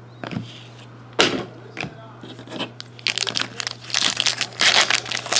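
A few light clicks and taps as cards are handled, then a trading-card pack being torn open with its wrapper crinkling loudly over the last two seconds or so.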